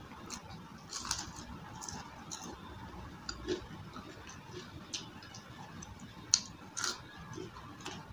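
Close-miked chewing of crunchy fried food: irregular crisp crunches and small mouth clicks, the sharpest about six seconds in.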